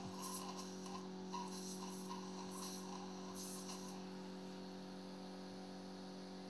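Faint steady electrical hum, with faint patches of hiss during the first four seconds.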